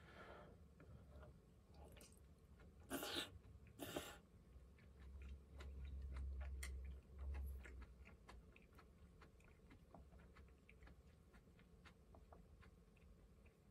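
A person chewing food with faint mouth clicks, and two short loud slurps from a bowl of broth about three and four seconds in, followed by a few seconds of low muffled rumble.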